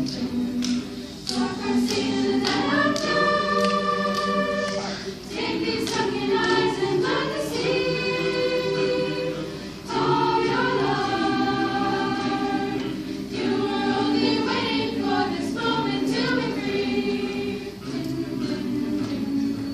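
Mixed teenage choir singing in several parts, holding sustained chords, with short breaks between phrases about five and ten seconds in.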